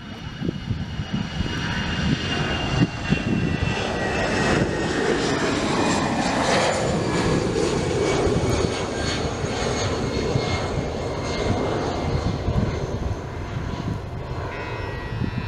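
Jet engines of an Airbus A320neo airliner passing close by. The rushing engine noise builds over the first few seconds, is loudest in the middle, then slowly fades. A high whine falls in pitch at the start.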